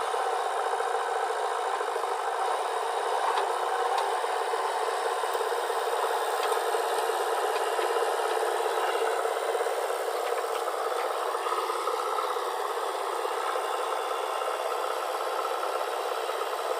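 Diesel working machinery running steadily with a continuous heavy rattle and clatter.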